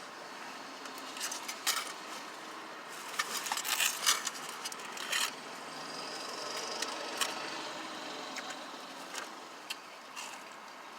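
Scattered clicks and rustles of food packaging and drink cups being handled during a meal, densest a few seconds in, over a steady car-interior hum.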